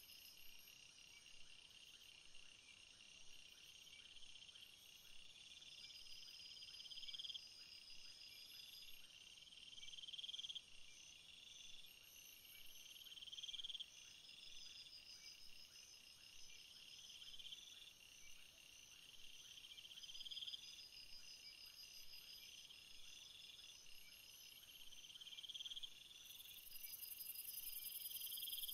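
Faint chorus of calling insects and frogs. A repeated call swells in loudness over about a second and a half and comes back every three seconds or so, over steady high-pitched trilling. A higher, hissing insect call joins near the end.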